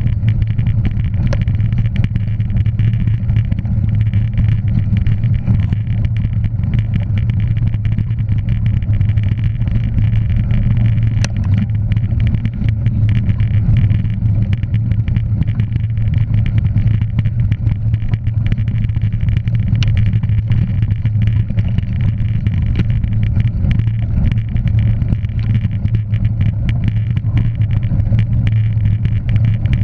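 Steady low drone of a moving motor vehicle, with a constant hum and road noise and a few faint clicks.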